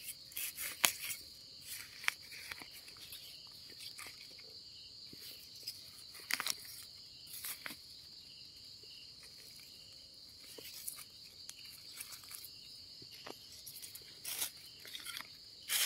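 Night insects trilling steadily on one high pitch. Over them come scattered short clicks and scrapes of a knife blade working in soil and dry leaves while termite mushrooms are dug up.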